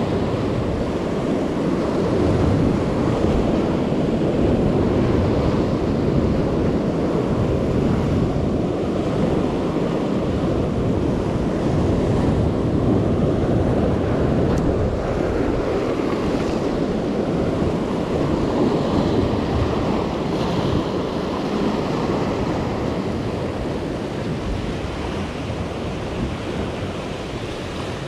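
Ocean surf breaking and washing over a rocky reef in a steady rush, with wind rumbling on the microphone.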